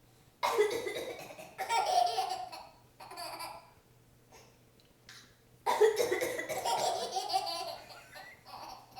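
A woman coughing and a baby laughing hysterically in response, in two bouts a few seconds apart.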